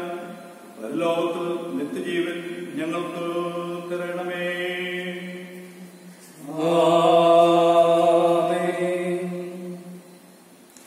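A man's voice chanting a liturgical prayer on a nearly steady pitch, in long held phrases; the loudest phrase begins about six and a half seconds in and fades out near the end.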